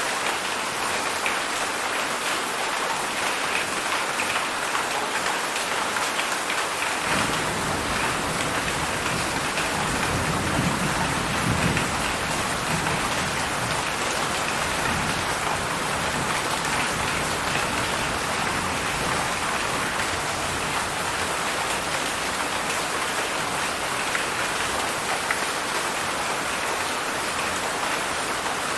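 Heavy rain falling steadily in a dense, even hiss. About seven seconds in a low rumble comes in underneath and swells for a few seconds.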